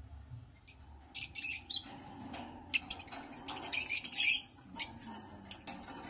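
Small parrots chirping and screeching in short, harsh, high-pitched bursts, starting about a second in and loudest around the middle.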